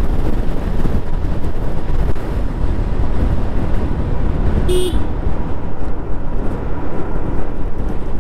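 Steady low rumble of wind and road noise from riding a Yamaha Aerox 155 scooter, with one short horn beep about halfway through.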